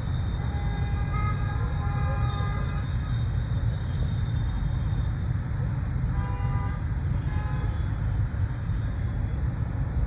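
Storm wind rumbling hard on the microphone, with rain and passing traffic, and vehicle horns honking briefly about a second in and again around six seconds in.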